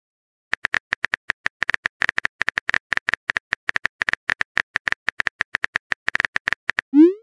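Rapid, irregular keyboard-tap clicks of a phone texting animation as a message is typed, about ten a second, all of the same pitch. Near the end a loud rising swoosh starts as the message is sent.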